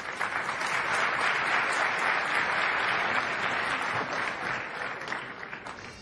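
Audience applauding, with dense clapping that swells in the first second, holds steady, then fades away near the end.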